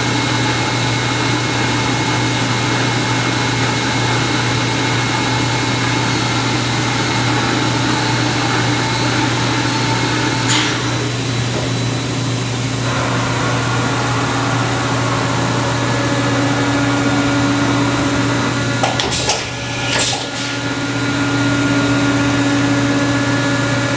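Leadwell V-60iT 5-axis CNC vertical machining center running under power: a steady motor and pump hum with several constant whining tones. The tone shifts a little around the middle, and two short knocks come about three-quarters of the way through.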